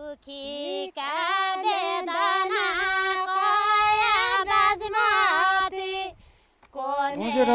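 A lone female voice singing unaccompanied, holding long notes with ornamented bends in pitch. It stops about six seconds in, and a voice starts again near the end.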